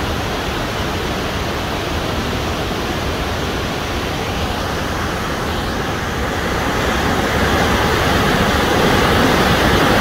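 Putna waterfall in high flow, white water rushing steadily over rock ledges in a dense, even noise; it grows a little louder about two-thirds of the way through.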